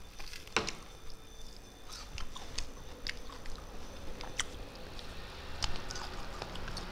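Close-up mouth sounds of chewing a mouthful of rice and small fried fish: wet smacking with scattered short clicks and crackles, the sharpest about half a second in.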